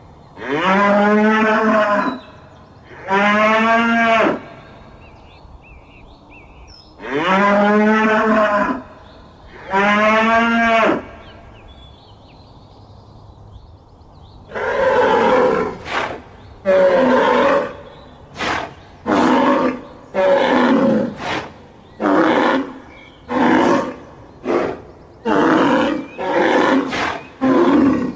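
Cow mooing: four long, drawn-out moos, each falling in pitch and then holding steady. After a pause of a few seconds, a different animal gives a long run of short, rough roaring calls.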